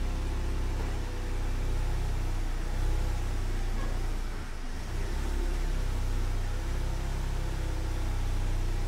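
Volkswagen Golf R's 2.0-litre turbocharged four-cylinder engine running at low speed as the car creeps forward, a steady low rumble that briefly dips about four and a half seconds in.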